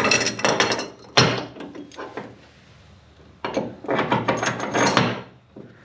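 Steel bolts clinking and rattling against a metal rudder port flange as they are dropped through its holes and fitted by hand, with one sharp click about a second in and a second spell of rattling past the halfway point.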